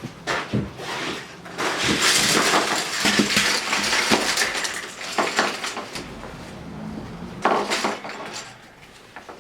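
Hard objects clattering and clinking as they are handled, in a dense stretch about two to five seconds in, with another short burst of clatter near the end.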